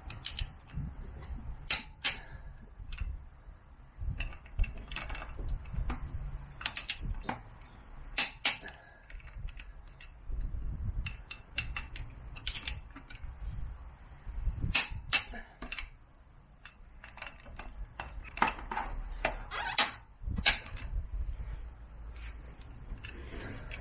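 Click-type torque wrench tightening a motorcycle's rear wheel bolts to 60 N·m: a sharp click, often two in quick succession, every few seconds as each bolt reaches its set torque, with lighter ratcheting ticks between.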